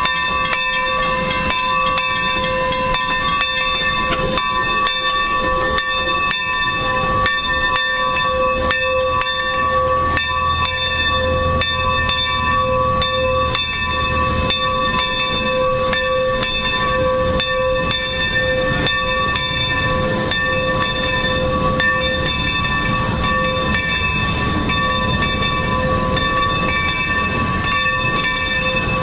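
1924 Baldwin 2-8-2 steam locomotive hissing steam, with a steady ringing whistle-like tone on several pitches over the hiss. A low rumble joins for a few seconds about a third of the way in.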